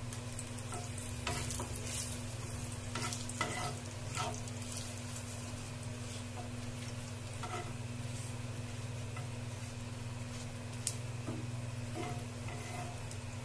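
Whole spices, dried red chillies and bay leaves, sizzling in hot oil in a nonstick frying pan while a spatula stirs and scrapes them, the strokes heaviest in the first few seconds and again near the end. A steady low hum runs underneath.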